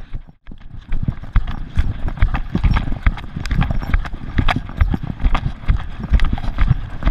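A Gordon Setter running flat out on wet sand, heard from a camera on her collar: her paws thud in a fast, even rhythm, and the camera jolts with each stride. Just after the start the sound drops out briefly before the strides resume.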